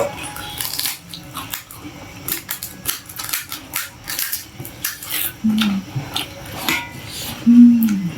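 Eating sounds: a spoon clinking on a plate amid crunching and chewing of pani puri and chaat, with two short voiced sounds about five and a half and seven and a half seconds in, the second the loudest.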